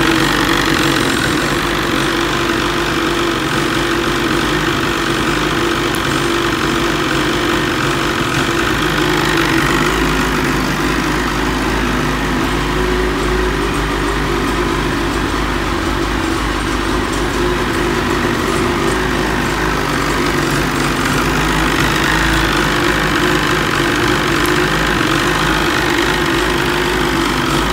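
Lynx Radien snowmobile's two-stroke engine idling steadily on the stand.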